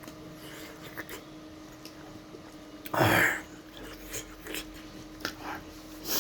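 Close-up eating sounds of a person chewing hot steamed momo: small mouth clicks, with one loud breathy huff about three seconds in.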